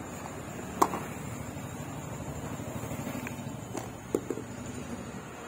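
Cardboard packaging being handled: the box lid pulled off and the inner tray set down on a cane table, with a sharp tap about a second in and a few softer clicks near the four-second mark, over a steady background hum.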